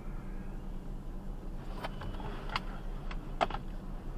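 Steady low hum of an idling vehicle heard from inside its cab, with a few sharp clicks in the middle.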